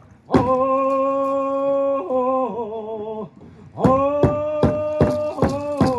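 Singing with a hand drum: the drumbeat stops while the voices hold one long note that steps down in pitch and breaks off about three seconds in. After a brief gap a second long note starts, and the drum strikes come back in near the end.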